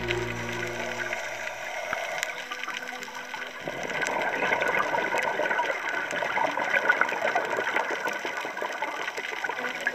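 Underwater ambience picked up by a dive camera: a dense crackle with bubbling and gurgling, growing louder and busier a little over three seconds in. Background music fades out about a second in.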